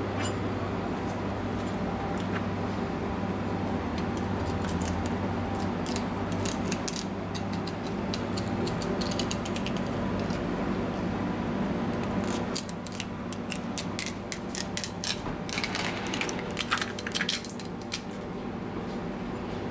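Kitchen knife clicking and scraping along the backbone and rib bones of a whole bonito as it is filleted, many quick small clicks that come thickest a few seconds before the end, over a steady low hum.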